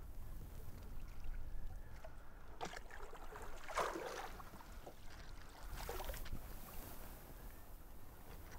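A hooked muskie splashing and thrashing at the surface beside the boat, still fighting and not ready to be landed. There are a few short splashes, the loudest about four seconds in, over a low steady rumble.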